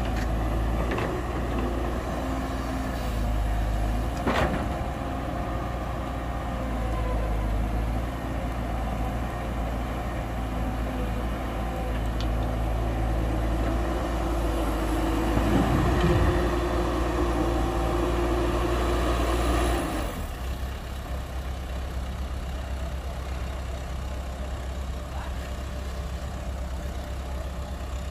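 Diesel engines of heavy earthmoving machinery, an excavator and dump truck, running with a steady low drone. There is a single clank about four seconds in. The engine works louder for several seconds, then drops sharply about twenty seconds in.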